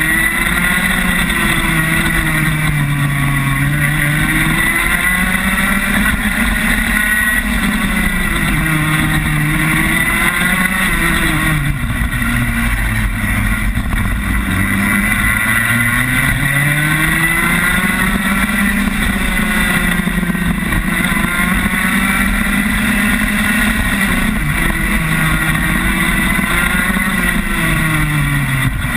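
Rotax Max kart's 125cc single-cylinder two-stroke engine, heard up close from onboard. It revs up and drops off again and again as the kart accelerates and brakes around the circuit.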